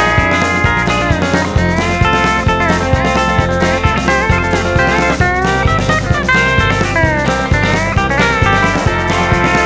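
Instrumental break of a blues-tinged rock song: a lead guitar plays bending notes over a steady bass and drum beat.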